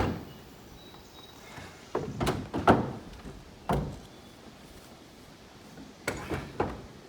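A series of knocks and thuds from heavy objects being handled and set down. There is one at the start, a quick run of them about two seconds in, a single thud about a second later, and two more near the end.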